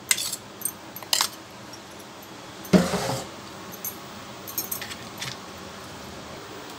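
Stainless steel mixer-grinder jar and steel bowl clinking and knocking against each other as they are handled, with sharp clicks near the start and about a second in, one louder clatter about three seconds in, and a few light clicks after it.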